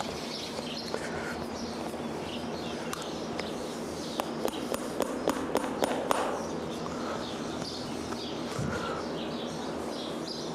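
Light, quick hammer taps driving a horseshoe nail (a number 5 City Head) through a polyurethane horseshoe into a horse's hoof, in a run of about eight taps around the middle, with a few single taps before. Birds chirp faintly in the background.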